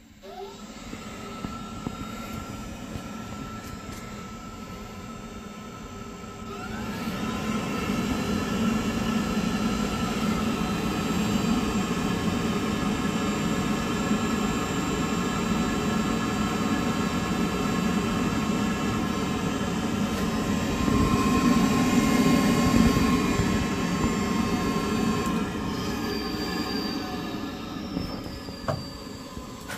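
Navien NPE tankless water heater running while hot water is drawn: a steady mechanical whir with several whining tones, starting at once, climbing in pitch and loudness about six or seven seconds in, and falling away near the end.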